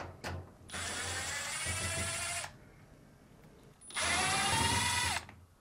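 Electric drill-driver running in two bursts, about two seconds and then a second and a half, backing out the two Phillips screws that hold the dryer's top. The motor whine rises slightly during each run and drops in pitch as the second one stops.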